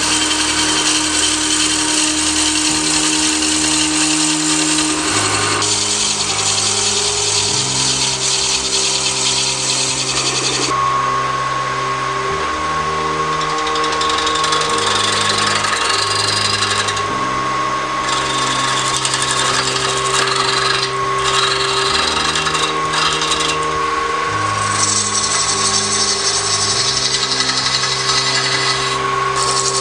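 Wood lathe spinning a cherry-wood blank while a hand-held turning gouge cuts into it, giving a steady scraping rush of shavings coming off. The cut breaks off briefly a few times in the second half.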